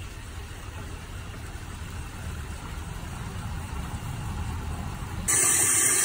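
A low steady rumble, then about five seconds in an abrupt change to a faucet running into a utility sink: a loud, steady hiss of water.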